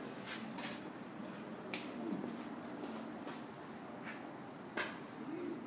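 Crickets chirping in a steady, high-pitched trill, with a few faint clicks.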